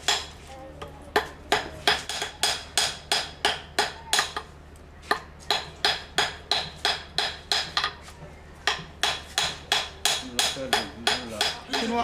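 Metal hammer striking silver being forged into a ring, in a quick steady rhythm of about three to four ringing blows a second, with a couple of short pauses.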